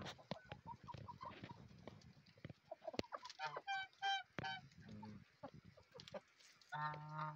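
A flock of hens clucking softly while they feed, with scattered short taps. About halfway through, domestic geese give a quick run of honks, and there is another long call near the end.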